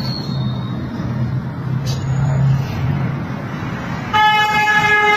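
Low background hum and room noise, then about four seconds in a loud, steady pitched tone, rich in overtones, held for about a second.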